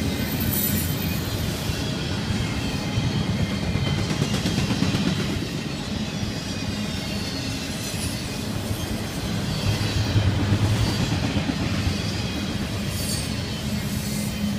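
Intermodal freight train's double-stack container cars and trailer flatcars rolling past. The wheels on the rail make a steady rumble that swells a little about ten seconds in.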